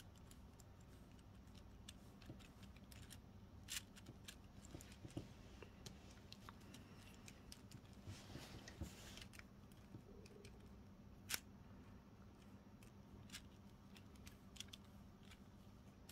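Faint, irregular clicks and ticks of plastic LEGO Technic gears and liftarms being handled and turned, with a soft rustle about halfway through, over near-silent room tone.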